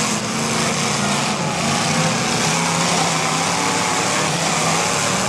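Engines of several demolition derby cars running together in a loud, steady drone, with no separate crash stands out.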